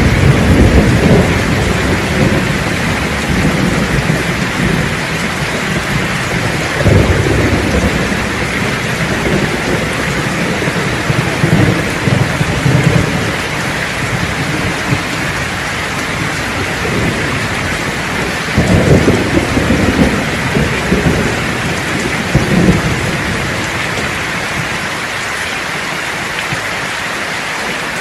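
Steady heavy rain with thunder rolling several times. The rumbles are strongest at the start and about two-thirds of the way through, then settle to rain alone near the end.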